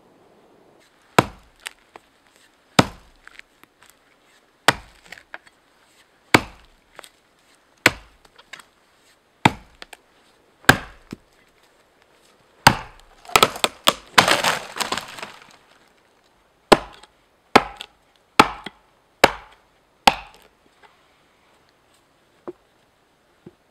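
Axe chopping into wood, one sharp strike every one and a half to two seconds. Near the middle comes about two seconds of dense cracking and splintering as the trunk gives way. After that, a run of quicker strikes.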